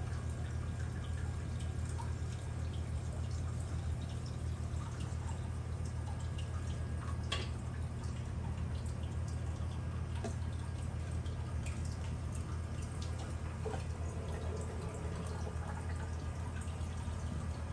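Reef aquarium's water circulation running: a steady low hum with water trickling and scattered small drips.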